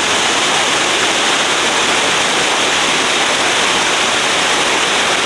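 Steady rushing of fast-flowing water: a river or waterfall, loud and even throughout.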